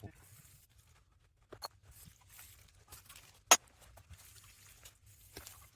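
Scattered small clicks and rustles of beach litter being handled and sorted, with one sharp knock about three and a half seconds in.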